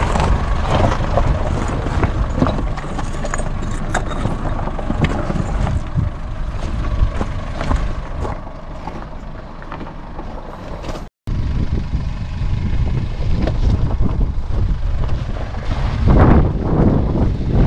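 Force Gurkha's diesel engine running at low speed as the 4x4 crawls over loose rocks, with stones crunching, clicking and knocking under the tyres. The sound cuts out for a moment about eleven seconds in.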